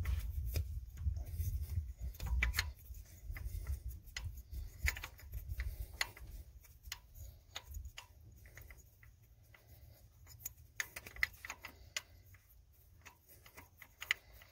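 Scattered light clicks and rubbing as a hand unscrews the IPR valve of a 6.0 Powerstroke diesel, with a low rumble over roughly the first six seconds.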